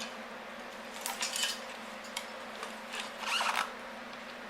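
Rustling and scraping as the wires of a car's wiring harness are handled, in two short bouts about a second in and about three seconds in, over a steady low hum.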